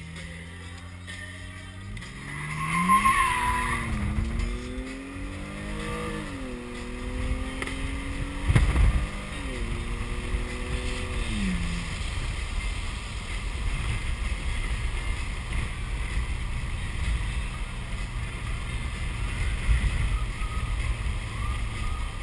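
BMW car accelerating away: the engine rises in pitch, drops back twice as it shifts up, then eases off. There is a brief wavering squeal as it pulls off, and a sharp thump about eight and a half seconds in. After that, steady low road and tyre noise while cruising.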